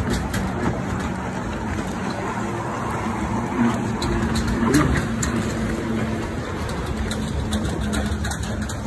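A motor running steadily with a low hum, over a constant rushing noise of open air.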